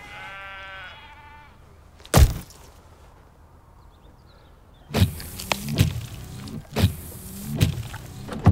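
A sheep bleats once, a long wavering call. About two seconds in comes one loud wet splat as food thrown from a bowl hits a pickup's windscreen. In the last few seconds there are several dull knocks.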